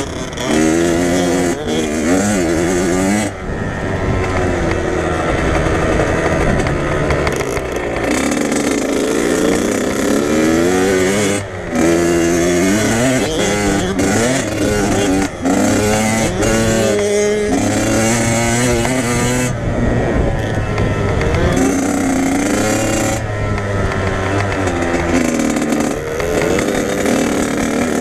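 Dirt bike engine under way, its revs climbing and falling again and again as the throttle is opened and closed through the gears, with a few brief drops off the throttle.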